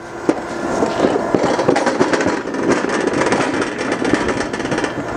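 Okamoto ACC-1224DX surface grinder's 12-inch wheel grinding a part as the table traverses, a dense crackling hiss full of fine clicks that builds over the first second and then holds. It is a fine automatic-downfeed pass taking a tenth of a thousandth per pass.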